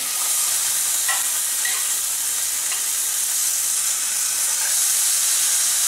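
Marinated whole fish sizzling in a hot frying pan just after being laid in: a steady, high-pitched frying hiss.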